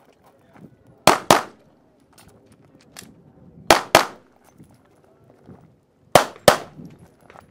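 Semi-automatic pistol firing three quick pairs of shots (double taps), one pair about every two and a half seconds, with about a quarter second between the two shots of each pair.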